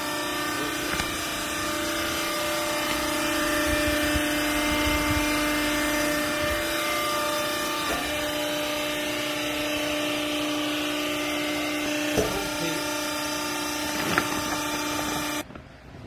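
Electric motor and hydraulic pump of a vertical waste-rag baler press running with a steady hum, with a couple of light knocks near the end, then cutting off suddenly.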